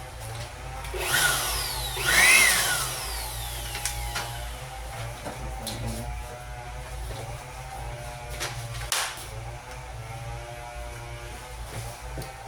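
Electric blower-vacuum's small motor running with a steady hum, its pitch sweeping up and down about two seconds in, with scattered clicks.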